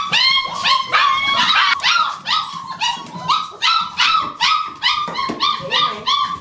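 German shepherd puppies yelping in a rapid string of high-pitched yips, about three a second, eager for the food being set down; the yelping stops abruptly near the end.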